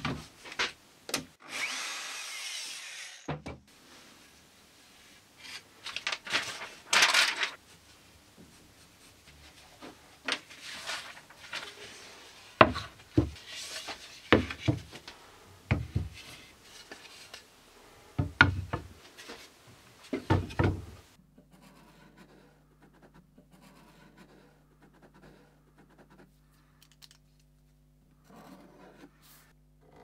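Woodworking sounds at a wooden workbench: a handheld router runs briefly near the start. Then MDF template pieces are knocked, set down and slid about on the bench in a string of sharp knocks and scrapes. The last third is much quieter, with a low steady hum and faint small handling sounds.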